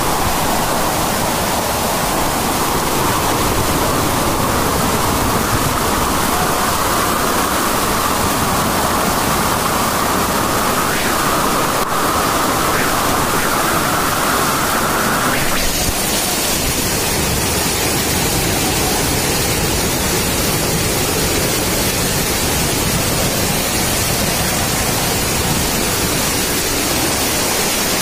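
Heavy rain and muddy runoff rushing down a road: a loud, steady wash of water noise. Its tone changes abruptly a little past halfway.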